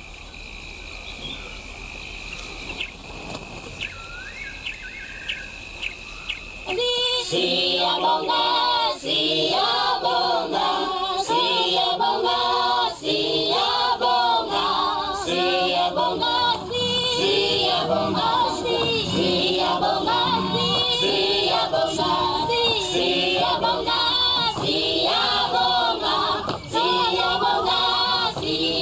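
Background choral music: a choir singing in short repeated phrases, coming in loudly about seven seconds in. Before it, a quieter night ambience with a steady high whine and a few short chirps.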